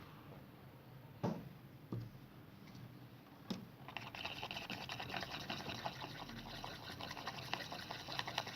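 A few light knocks of containers being handled, then from about four seconds in a steady wet crackling as a creamy slime mixture is worked.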